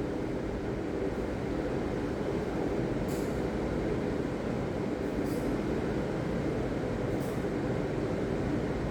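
Ocean surf breaking, a steady low roar without pause, with a few faint brief hisses.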